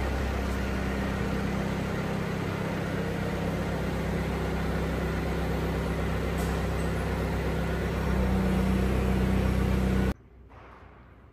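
Steady low mechanical drone holding several fixed low pitches, a little louder near the end, then cutting off suddenly.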